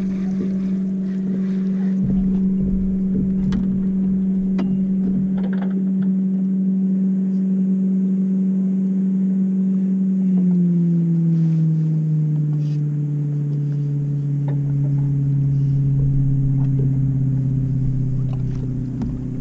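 A boat motor running steadily with a humming tone, which steps down to a lower pitch about ten seconds in as it is throttled back. A few faint clicks and knocks sound over it.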